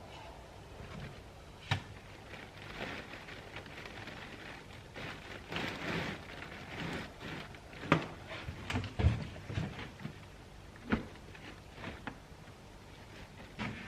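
A papery wasp nest being handled and pulled loose: crackly rustling and tearing, with several sharp knocks.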